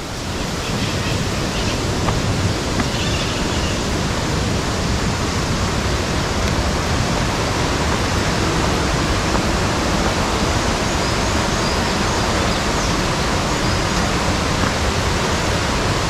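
Steady, even rush of falling water from a waterfall and its stream, with no breaks.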